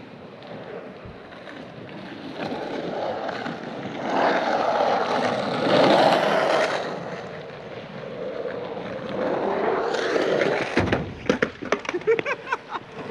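Cruiser skateboard wheels rolling over an asphalt pump track: a rough rumble that swells as the board passes close, loudest about six seconds in, and fades as it rolls away through the rollers. A few sharp clicks come near the end.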